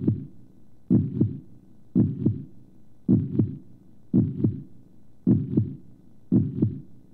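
Heartbeat sound effect: a steady lub-dub, two low thumps close together repeating about once a second, seven beats in all.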